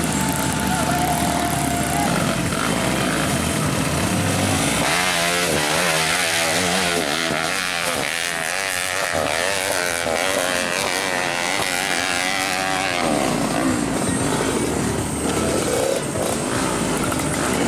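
Dirt bike engines running, with one bike revving hard up and down over and over through the middle of the stretch as it climbs.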